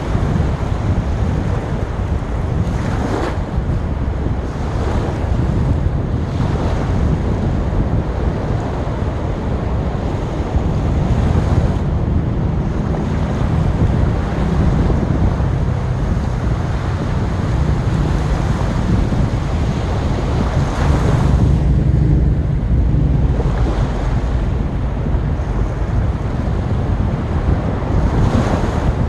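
Sea surf: waves breaking and washing ashore in a continuous rush, with louder breakers swelling up about 3 seconds in, around 21 seconds and near the end. A deep, steady rumble underneath suggests wind buffeting the microphone.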